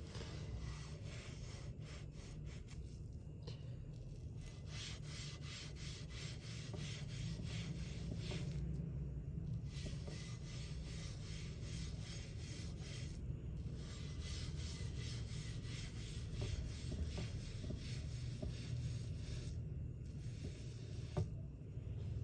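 A paint tool scraping and rubbing through thick acrylic paint in quick, even strokes. The strokes come in runs of several seconds with short pauses, over a steady low hum.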